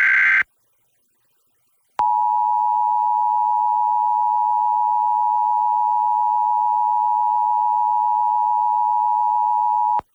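Emergency Alert System broadcast: the last half second of a SAME header data burst, a harsh screech, then after a short silence the EAS attention signal, a steady two-tone alert tone held for about eight seconds that cuts off sharply, announcing a Required Monthly Test.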